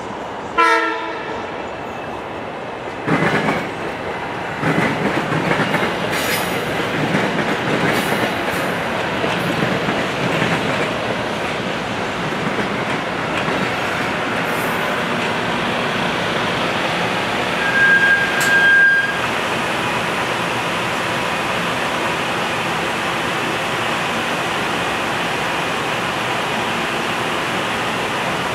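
Metro-North electric multiple-unit commuter train rolling past at close range: a short horn blast about half a second in, then the steady rumble and clatter of the cars going by. A brief high squeal comes about two thirds of the way through.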